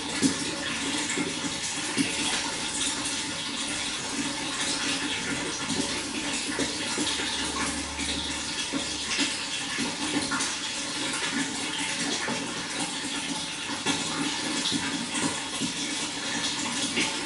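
Running water pouring and splashing in a steady rush, with small irregular splashes.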